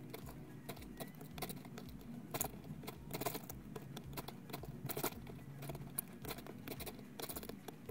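Cardboard jigsaw puzzle pieces clicking and rustling as a hand rummages through a box full of them: a faint, irregular patter of small taps.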